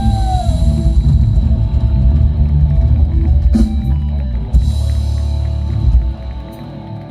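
Live band playing through a stage PA: drum kit and bass guitar heavy in the low end, with a long held note that ends within the first second. The music drops in level about six seconds in.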